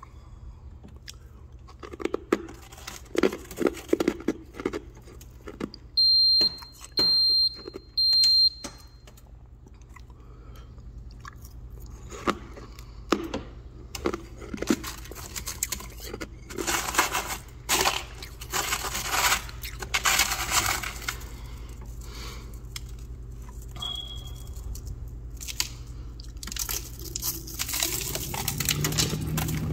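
Freezer frost ice crunched and chewed by mouth, with clicks and scrapes of a metal spoon in a plastic bowl; the crunching is densest for a few seconds around the middle and again near the end. Three short high beeps sound about six seconds in, over a steady low hum.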